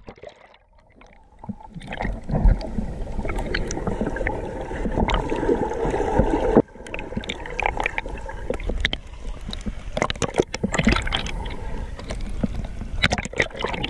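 Water splashing and gurgling around a swimmer in a pool, picked up by a camera dipping in and out of the water, with many sharp splashes. About halfway through the sound drops away suddenly and then picks up again.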